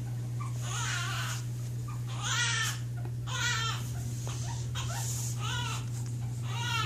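Quaker parrot (monk parakeet) crying in imitation of a human infant: a string of short wailing cries about every half second to a second. This is the bird's attention-seeking cry. A steady low hum runs underneath.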